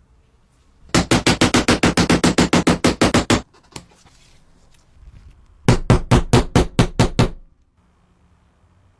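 Mechanism of a restored 1920s mini soccer game being worked: two runs of rapid, even clacks at about eight a second, with a slight ring to each. The second run is shorter.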